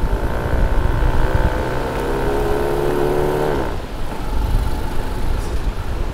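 Quad bike (ATV) engine running under throttle, its pitch rising slightly, then cutting back sharply about three and a half seconds in. Heavy wind buffeting on the microphone throughout.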